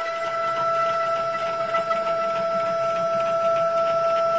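Stepper motors of a Genmitsu PROVerXL 4030 desktop CNC router moving the head along its rails: a steady high whine with two clear tones.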